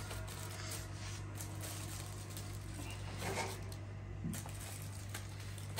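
Faint crinkling and rustling of aluminium-foil fish packets being handled and laid into a large aluminium steaming pot, over a steady low hum.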